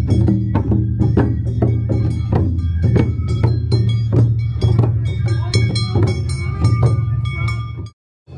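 Awa odori festival drumming: large shoulder-slung taiko drums beaten with sticks in a quick, steady rhythm, with sharp higher-pitched strikes layered over the deep drum tone. The sound cuts off suddenly just before the end.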